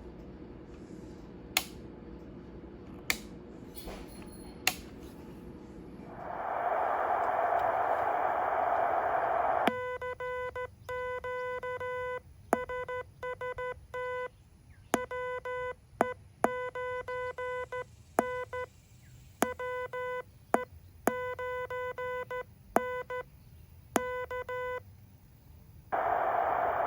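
Heathkit HW-8 QRP transceiver: three sharp clicks, then receiver hiss comes up about six seconds in. From about ten seconds, Morse code is sent, a buzzy sidetone keyed in dots and dashes with the hiss muted, and the receiver hiss returns near the end.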